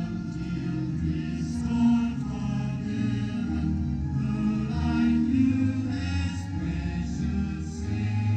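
A large crowd singing a hymn together in slow, held notes.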